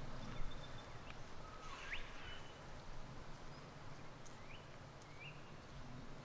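Quiet forest ambience with a few short, rising bird chirps: one about two seconds in and two more later on.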